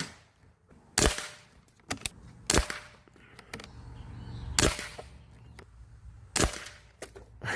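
Artemis M25W air rifle firing 5.5 mm slugs: four sharp shots spaced about one and a half to two seconds apart, with fainter clicks between them.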